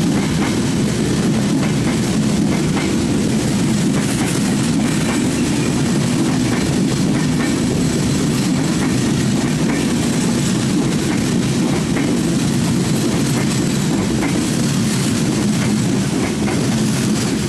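Maitree Express passenger coaches running past on the adjacent track, close alongside: a loud, steady rumble of wheels on rails with many small clicks and rattles mixed in.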